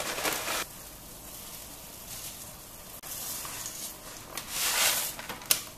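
Pot of water at a rolling boil, bubbling and hissing. About four and a half seconds in comes a louder rush as a handful of dry noodles is dropped into the water by hand, followed by a sharp click near the end.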